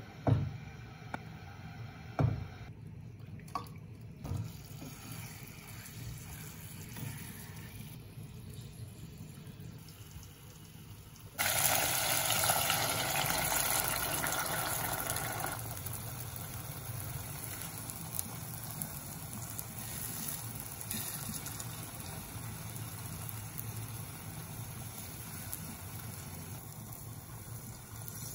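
A few knocks of kitchen handling, then water starts running suddenly, loudest for the first few seconds, then continuing more softly.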